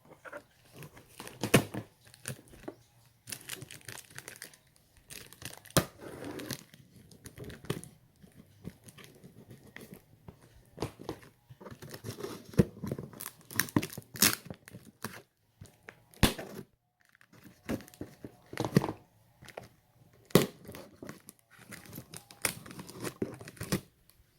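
A cardboard relief supplies box being opened by hand: irregular tearing and crinkling of its packing, with sharp rips scattered throughout.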